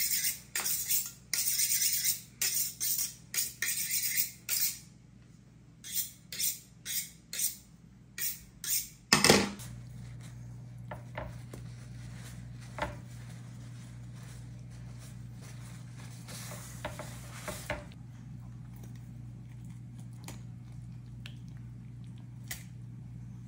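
A run of quick metallic scraping strokes, roughly two a second with a pause of about a second midway, ending in one loud knock. After it comes a steady low hum with a few faint clicks.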